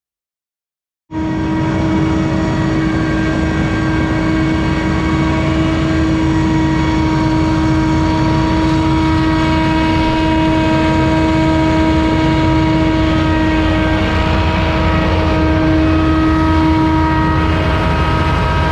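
Scag Windstorm stand-on debris blower running at full throttle: a steady, loud engine and fan rush with a constant whine. It starts abruptly about a second in.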